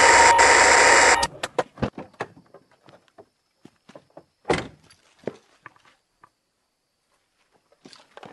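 Loud hiss of two-way radio static that cuts off about a second in. Then a car door is handled: scattered small clicks and knocks, with one heavier thump about halfway through.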